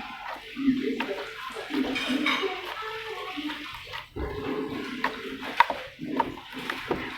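Soft slime being stretched and squeezed by hand: irregular wet squelching with a few small clicking pops.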